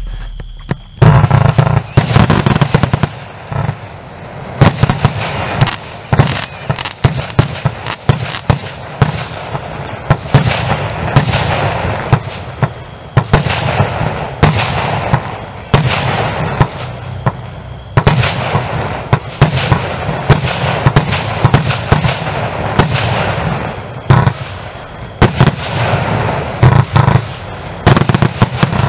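A 240-shot firework compound box (cake) firing a continuous rapid barrage, starting about a second in: sharp bangs several times a second, irregularly spaced.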